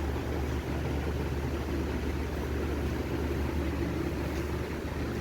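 A steady low mechanical hum over an even background hiss, unchanging throughout.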